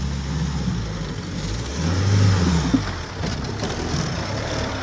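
Mahindra Thar engine revving on an off-road track, swelling to its loudest about two seconds in and easing off again, with a short sharp knock just before three seconds.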